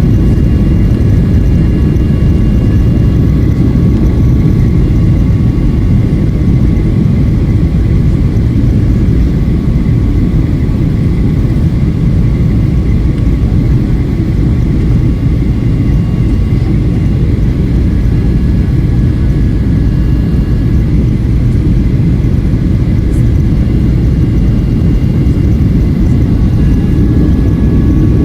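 Steady, loud low rumble of a jet airliner's engines with a faint steady whine above it, unchanging throughout.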